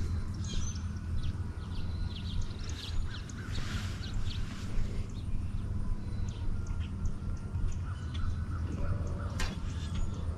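Wild birds calling in short, scattered notes over a steady low hum.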